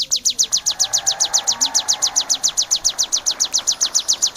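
Ciblek sawah (plain prinia) calling in a fast, even string of sharp, high notes, about ten a second.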